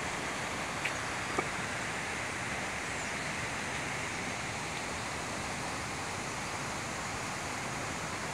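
Steady rushing of a waterfall, an even hiss of falling water, with two faint ticks about a second in.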